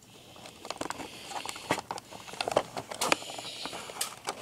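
Plastic blister packaging of a boxed spinning-top toy being handled: irregular crinkles and sharp plastic clicks.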